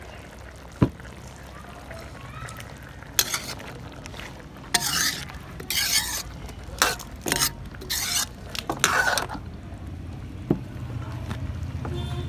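Steel ladle stirring and scraping chicken pieces in oil and tomato paste around a large metal karahi: a sharp knock about a second in, then a run of irregular scrapes for several seconds.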